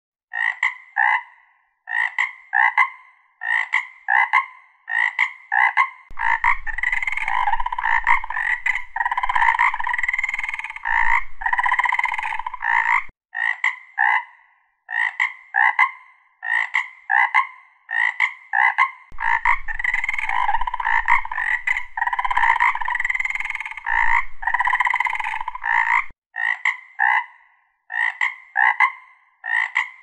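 Frogs croaking: short calls in quick pairs, breaking twice into a longer, denser stretch of overlapping calls with a low hum beneath. The same sequence repeats about every 13 seconds, as a looped recording.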